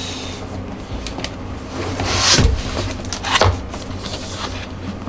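Hands handling a cardboard box: a few light knocks and the rub of skin on cardboard, with a longer scraping rush about two seconds in.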